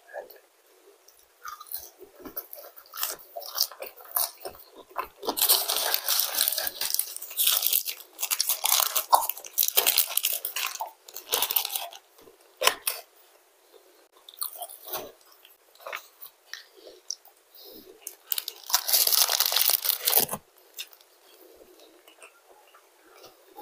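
Chewing and crunching of fries and a fried chicken fillet sandwich close to a clip-on microphone. The chewing comes in several louder stretches of a second or two, with small clicks and rustles of handling the food and its paper wrapper between them.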